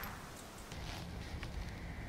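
The echo of the last .22 LR shot from a CZ Scorpion EVO 3 S1 carbine fades away in the first moment. Low, steady outdoor background noise follows, with one faint click about one and a half seconds in.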